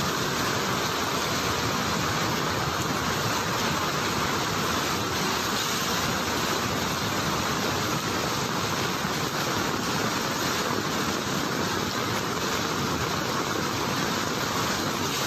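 Floodwater torrent rushing, a steady even noise with no breaks.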